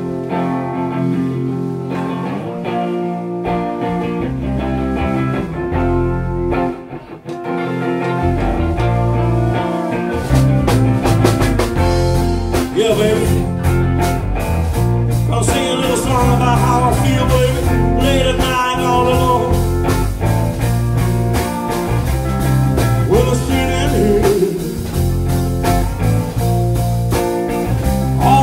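Live blues-rock band playing: electric guitars open the song, then bass and drums come in about eight to ten seconds in and the full band plays on.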